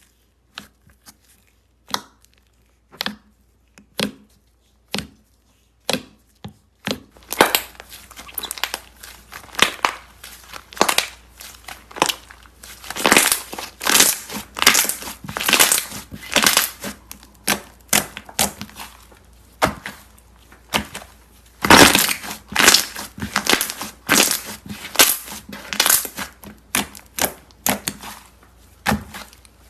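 Slime being handled close to the microphone, making crunchy, crackly pops. For the first several seconds there are single sharp clicks about once a second, then a dense, continuous run of crunching crackles.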